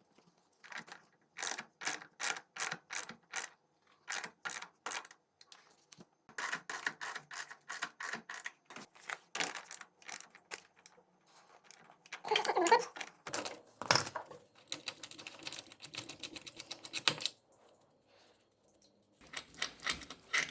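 Runs of sharp metallic clicks, several at a time with short pauses between runs: a ratchet wrench turning the screw of a bushing press tool to push a new rubber engine-mount bushing into a GY6 scooter engine mount. A denser spell of rattling comes about two-thirds of the way through.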